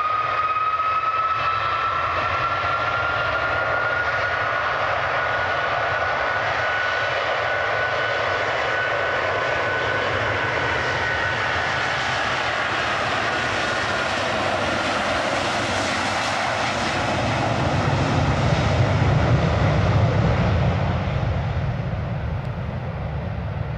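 Airbus A330 airliner's twin jet engines running at high power on the runway roll: a steady high whine over a hissing roar, with the whine fading and a deeper rumble swelling about three-quarters of the way through before it all dies away as the aircraft moves off.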